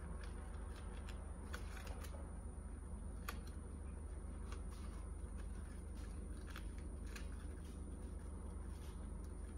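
Steady low hum with a thin high whine, and a few faint scattered clicks.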